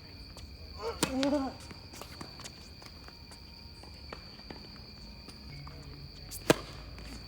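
Tennis being played: a sharp ball strike about a second in, followed by a short vocal sound from a player. Light footsteps and shoe scuffs continue on the court, and another loud, sharp ball impact comes near the end.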